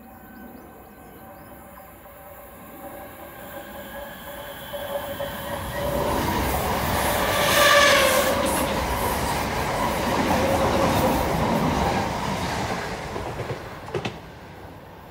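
Eight-car Class 317 electric multiple unit running through the station at speed without stopping. It comes in with a rising hum, is loudest about eight seconds in with rapid wheel clatter over the rails, then fades as it runs away. A sharp click comes near the end.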